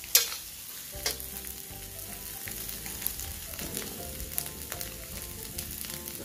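Mustard greens and cabbage with scrambled egg sizzling in a stainless steel wok, with two sharp clanks of the metal spatula against the wok in the first second or so, then a steady sizzle with a few light ticks.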